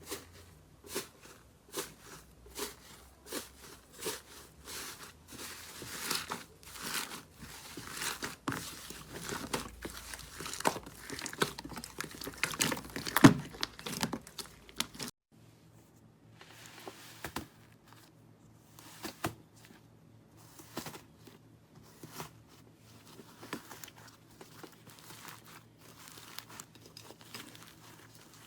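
Slime being squeezed and pressed by hand, giving quick trains of sharp crackles and pops that grow denser and louder, with one loud pop about halfway. It then cuts to softer, sparser crackling over a faint steady hum.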